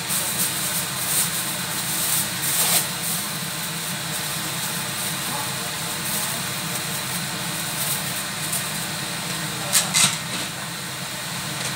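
A wok of chicken feet simmering in soy-sauce broth over a steady low mechanical hum, with a few short clicks in the first three seconds and a sharper pair near ten seconds.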